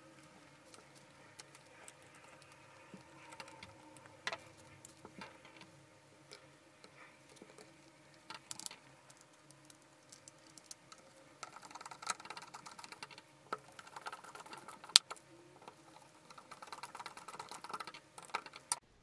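Hands fitting parts into the plastic housing of a 1980 Black & Decker drill: small plastic clicks, taps and scrapes, with quick runs of small clicks in the second half and one sharp click about fifteen seconds in.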